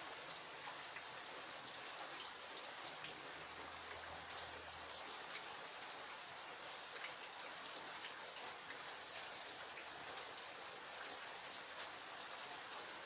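Steady rain falling and pattering on surfaces, with many separate drops ticking sharply over an even hiss.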